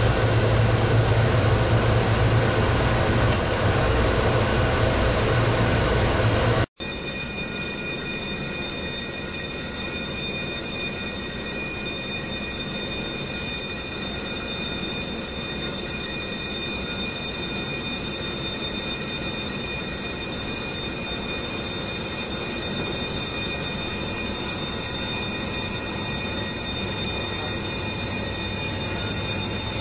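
Cab noise of an SNCB class 20 electric locomotive under way, a steady low rumble. About seven seconds in it cuts off abruptly to a quieter steady rail-yard hum with several high, steady whining tones.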